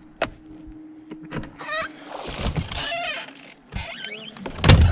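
Bow-mount electric trolling motor on a bass boat being pulled up and stowed. A steady hum stops about halfway, then there is mechanical rattling and squeaking, and a loud clunk near the end as the motor drops into its bracket.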